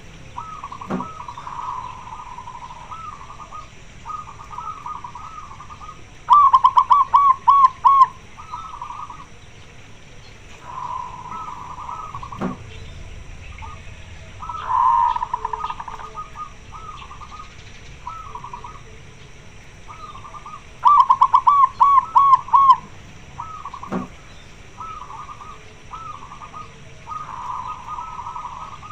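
Zebra doves (perkutut) cooing in short repeated phrases, with two much louder runs of rapid staccato coos about six seconds in and again about twenty-one seconds in. The uploader presents this as a hen calling for a mate.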